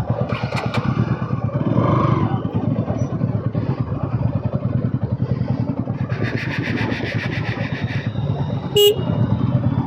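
Bajaj Pulsar NS200's single-cylinder engine running through its stock exhaust with a steady pulse, under way in traffic. A vehicle horn buzzes for about two seconds past the middle, and a short horn toot comes near the end.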